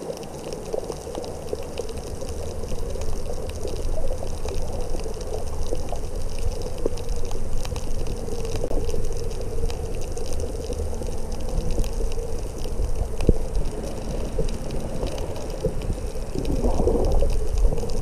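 Underwater ambience heard through a camera's waterproof housing: a steady low rumble of moving water with scattered faint clicks and crackles, and a brief louder rush near the end.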